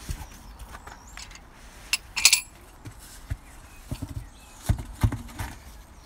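Scattered knocks and clatter of a removed alloy road wheel being handled on concrete: a sharp metallic clank about two seconds in, then two dull thumps near the end as the wheel is laid down under the car's sill.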